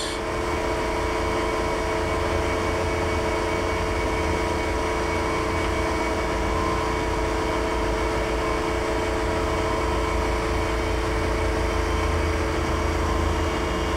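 TOS Hostivar BUB 32A/1500 universal cylindrical grinder running with its hydraulics and grinding wheel on and the table reciprocating: a steady machine hum with several held tones.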